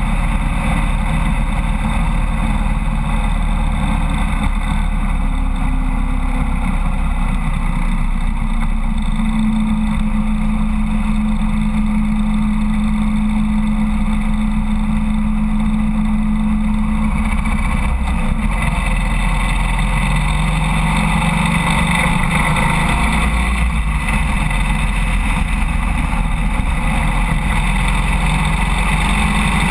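Harley-Davidson Road King motorcycle's V-twin engine running at steady highway cruising speed, mixed with heavy wind and road noise. Its hum holds an even pitch through the middle, then settles a little lower about two-thirds of the way through.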